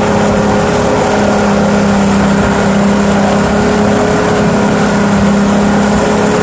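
Mercury outboard motor running at a steady speed with an even hum, over the rushing, churning water of the boat's wake.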